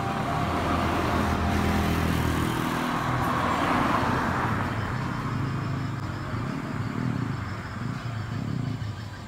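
Road traffic passing by: a small car and then a motorcycle drive past, tyre and engine noise swelling to its loudest a few seconds in and then fading away.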